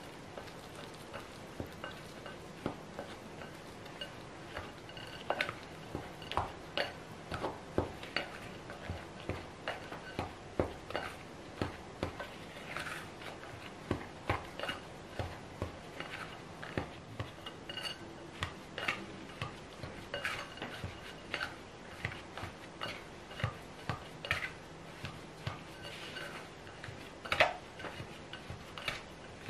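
Pink plastic dough scraper knocking and scraping against a glass mixing bowl while mixing flour and water into a shaggy bread dough: irregular clinks and scrapes, about one or two a second, with one louder knock near the end.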